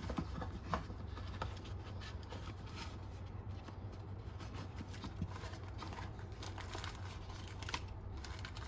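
Quiet handling of unboxed accessories and packaging: a few light clicks and faint rustles over a steady low hum.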